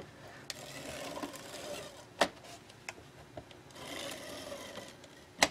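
Fast Fuse adhesive tape runner rolled along the edges of an album's kraft cardboard cover in two passes, each a soft, even whir, with a few sharp clicks between them.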